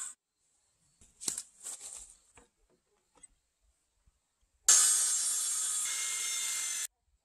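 Makita circular saw cutting into the end of a timber beam for about two seconds near the end, starting with a loud bite and then running steadily until it cuts off abruptly. Earlier, a few light knocks and scraping handling sounds.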